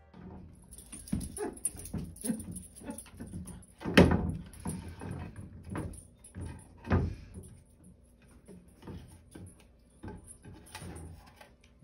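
Wooden plank knocking and scraping against a doorway as a Weimaraner tries to get it through. The clatter is irregular, with two louder knocks about four and seven seconds in.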